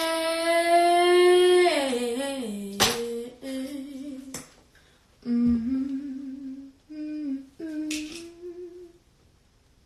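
A young woman humming a wordless tune in long held notes that step up and down, with a sharp click about three seconds in.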